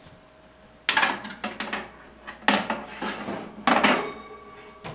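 Metal wire rack clanking and scraping against the shelf rails of an Emeril Lagasse French Door Air Fryer 360 as it is slid into a shelf slot, in a run of sharp clanks starting about a second in.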